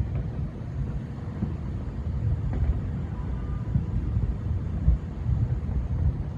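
Thousands of distant fireworks merging into a continuous low rumble, the "rolling thunder" of a city on the Fourth of July, with scattered nearer pops and a louder bang about five seconds in.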